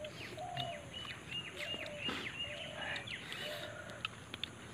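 Birds calling: a run of short high chirps, each dropping in pitch at its end, over lower, shorter calls.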